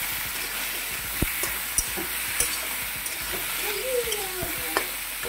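Boiled taro corms frying in oil and spices in a kadai, sautéed before any water goes in: a steady sizzle with a few sharp clicks of a spatula against the pan as they are stirred.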